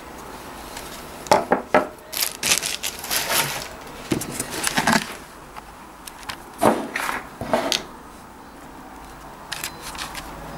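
Handling noise from pedals and small parts being moved about and set down on a wooden table: irregular knocks, clicks and short scrapes.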